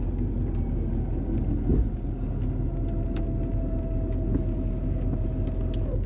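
Truck engine running steadily under load with a low rumble while pulling a truck stuck in a river, until the mud's suction breaks. A steady whine joins in about halfway through and drops off just before the end.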